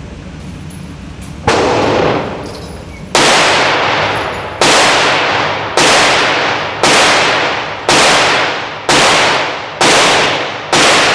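Nine single gunshots about a second apart, the gaps shortening slightly, each followed by a long echoing tail.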